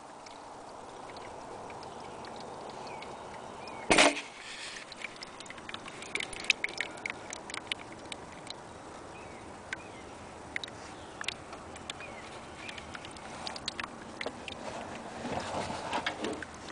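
Used engine oil dripping from a Sabre lawn tractor's drain into a bucket of old oil: scattered small ticks of drops. A single knock comes about four seconds in, and a rustle near the end.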